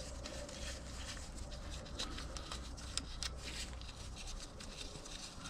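Faint scattered clicks and light rubbing of small metal parts as the oil filter cover's bolts are turned out by hand, with a few sharper ticks around the middle.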